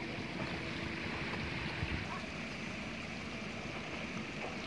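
Steady rush of a shallow river flowing over stones.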